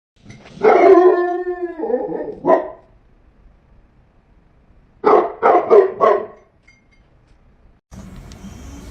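A dog howls in one long, slightly falling call, gives a short bark, then after a pause barks four times in quick succession.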